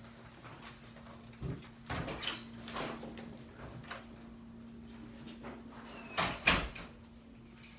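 A few light knocks and clicks, then a louder double thud about six seconds in, over a steady low electrical hum.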